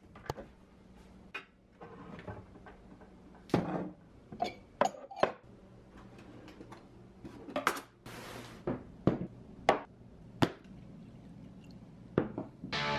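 Kitchen cabinet door and drawer being opened and shut, with glassware set down: a series of separate knocks, clicks and glassy clinks, and a short sliding hiss about eight seconds in. Music comes in near the end.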